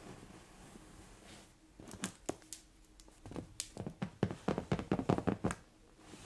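Long acrylic fingernails tapping on a fabric sofa cushion: a few scattered taps, then a quick run of about five taps a second lasting a couple of seconds.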